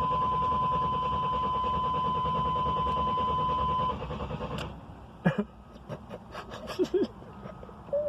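Chevrolet Blazer that won't start: a steady high tone over a fast, even chattering instead of the engine cranking. It cuts off about four seconds in, followed by a few scattered clicks.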